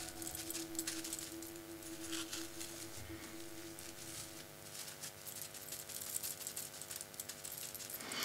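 Faint, irregular crackling ticks of gilding leaf being brushed down onto a glued bottle with a paintbrush, over a low steady hum.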